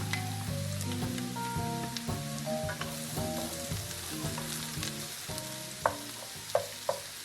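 Onions, carrots and chopped garlic sizzling as they fry in bacon fat, being stirred in the pan, with a few sharp clicks near the end. Soft background music plays under it.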